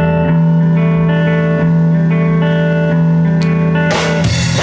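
Live rock band opening a song: an electric guitar and bass hold one distorted chord that rings out steadily, then about four seconds in the drums and full band come in.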